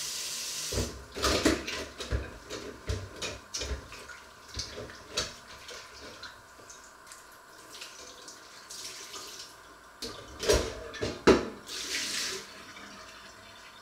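A steel cooking pot being washed by hand in a metal kitchen sink. Tap water runs at first, then comes a string of splashes and irregular knocks of the pot against the sink, with two loud clanks near the end as the pot is lifted and water is poured out of it.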